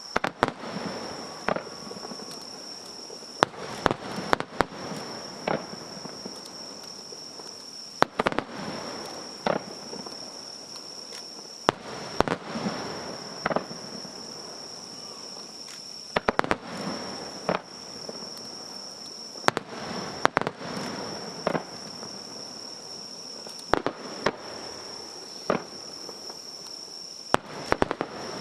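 Fireworks display: a string of sharp bangs every second or so, often two or three in quick succession, each trailing off in a short rumbling echo.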